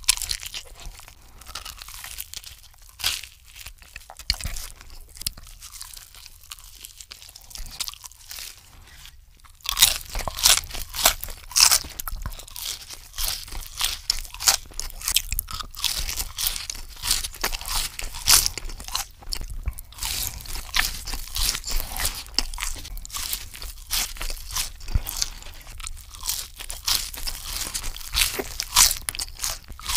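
Close-miked mouth sounds of eating: soft chewing of a breaded chicken parmesan sandwich, then from about ten seconds in louder, denser crunching and chewing of french fries.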